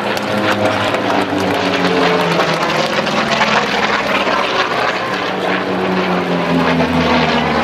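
An F4U-4 Corsair's Pratt & Whitney R-2800 18-cylinder radial engine and propeller droning loudly in flight, the pitch sliding down in the first few seconds as the plane passes.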